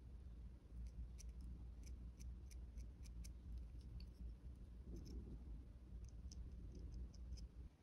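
Small craft-knife blade cutting and scraping a dried avocado seed: faint, irregular little clicks as the blade nicks the hard seed, in two spells with a short pause around the middle, over a low rumble.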